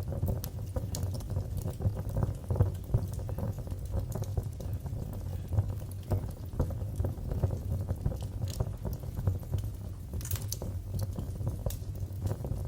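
Fire crackling in a fireplace: a steady low rumble of burning under many small ticks and pops, with a sharper burst of crackles about ten seconds in.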